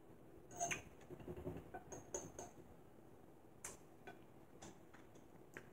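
Scattered faint clicks of a metal fork against a dinner plate, with soft chewing, as someone eats.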